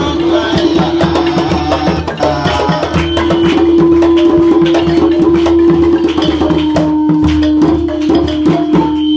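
Balafon, a West African wooden-keyed xylophone, played with mallets in a fast run of struck notes. A held tone sounds underneath and steps down slightly about six seconds in, with a low beat pulsing beneath the strikes.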